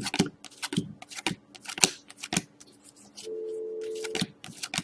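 Hockey trading cards handled and flicked through: a run of quick, irregular card snaps and slaps, with a brief steady low hum about three seconds in that lasts about a second.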